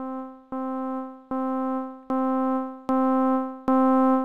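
Logic Pro ES1 software synthesizer playing the note C over and over, a new note roughly every 0.8 s, each a step louder than the last as the note velocity rises. With the amplifier's velocity range floor raised, even the softest notes sound clearly.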